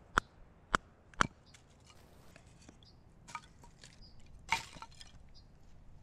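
Sharp wooden knocks of kindling being split with a bushcraft knife on a log. There are three strikes about half a second apart in the first second and a half, then a fainter knock and a louder one later on.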